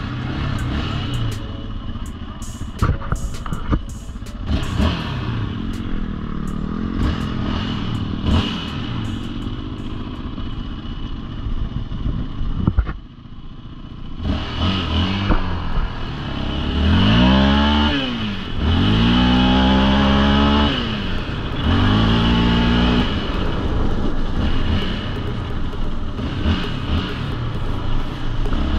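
ATV engines running on a gravel track. About halfway through, a quad accelerates away, its engine pitch rising and dropping three times in quick succession as it shifts up through the gears, then running steadily at speed.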